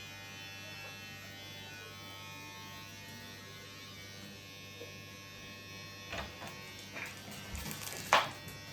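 Electric hair clippers running with a steady buzz during a haircut. In the last few seconds a few clicks and knocks, one sharp and loud near the end.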